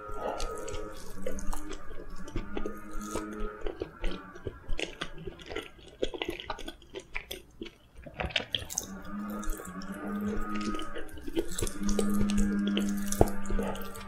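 Close-miked wet chewing of soft steamed kabocha squash, with small mouth clicks and lip smacks throughout. A steady low hum-like tone runs alongside and is loudest near the end.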